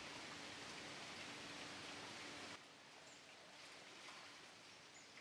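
Steady rain falling on an outdoor swimming pool and the garden around it, a faint even hiss that drops in level about two and a half seconds in.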